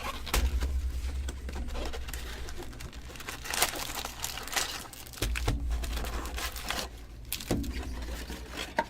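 A sealed box of 2015 Bowman Chrome baseball cards being opened by hand: wrapping crinkling and tearing in irregular crackles and clicks. There are low handling bumps now and then.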